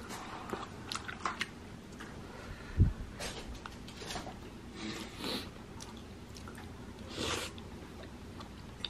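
Chewing and wet mouth sounds of a person eating tteokbokki and gimbap, with scattered small clicks and smacks and a dull thump about three seconds in.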